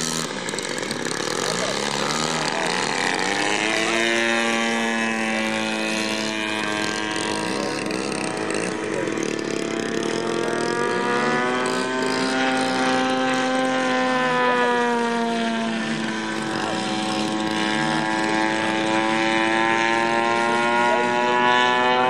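Engine and propeller of a Mamba 120 radio-controlled biplane with a GP-123 engine, flying overhead: a steady drone that settles into a clear note about four seconds in, its pitch dipping near the middle and rising again toward the end as the model manoeuvres.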